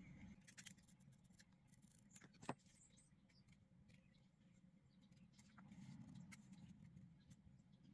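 Near silence with faint rustling and ticking as a ribbon is pressed and folded onto a thin metal headband, and one sharper click about two and a half seconds in.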